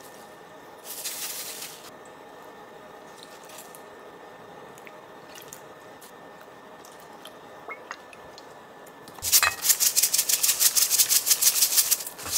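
Whole sesame seeds rattling in a shaker jar with a sprinkler cap, shaken rapidly over a bowl of lettuce for about three seconds near the end, several shakes a second. A short soft hiss comes about a second in.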